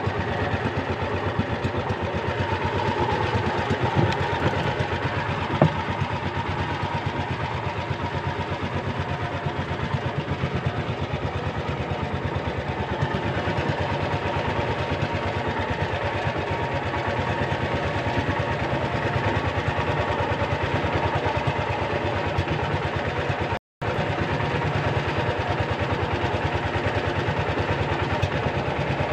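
Engine of a small wooden fishing boat running steadily at an even speed, a fast regular putter. The sound cuts out for a split second about three-quarters of the way through.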